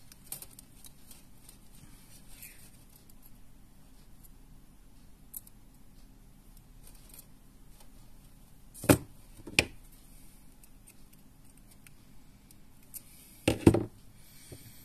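Pliers at work bending a small loop in lure wire: two sharp clicks of the pliers about nine seconds in. Near the end comes a louder clatter as the pliers are laid down on the table.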